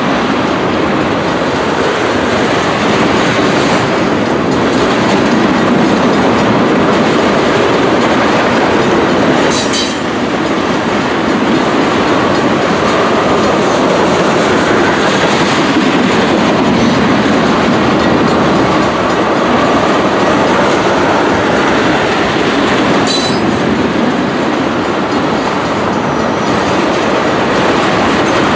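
Railroad tank cars of an ethanol train rolling past close by: a steady, loud rumble of steel wheels on rail with clickety-clack over the rail joints. Brief high-pitched wheel squeals come about ten seconds in and again a little past twenty seconds.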